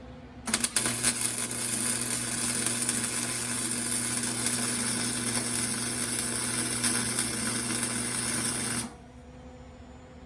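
Electric arc welding on steel: one continuous weld run of about eight seconds, a steady sizzling crackle over a low electrical hum, striking up with a few sharp pops about half a second in and cutting off abruptly near the end.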